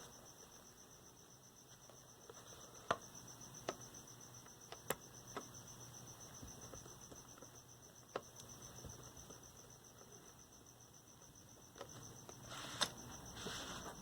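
Sparse, sharp clicks and taps as the parts of a small transistor radio's case are handled and fitted back together, over a faint steady high pulsing chirr in the background.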